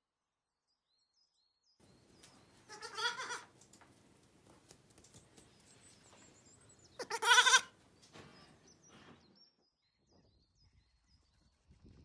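A young lamb bleating twice: two short, wavering calls about four seconds apart, the second louder.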